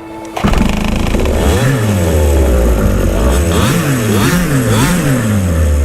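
Small gas two-stroke engine of a 1/5-scale Losi 5ive-T RC truck, coming in about half a second in. It revs up and down about four times, rising and falling in pitch, then settles into a steady idle near the end.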